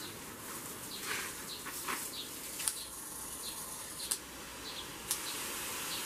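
Garden hose spray gun spraying a jet of water, a steady hiss with a few sharp clicks, with birds chirping in the background.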